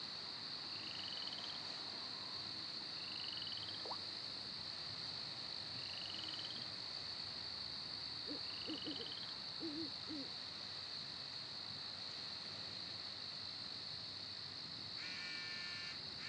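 Night-time chorus of insects and frogs: a steady high-pitched insect drone, with a short rising chirp repeating every two to three seconds that stops about halfway through. Near the end a fast pulsed trill starts up.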